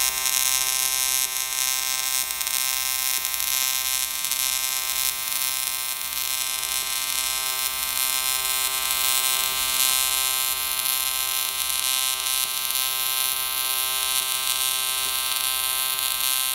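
AC TIG welding arc on aluminium buzzing steadily, with a hiss over the buzz. The arc runs at a fixed 90 amps from a trigger switch, so the buzz holds even with no rise or fall.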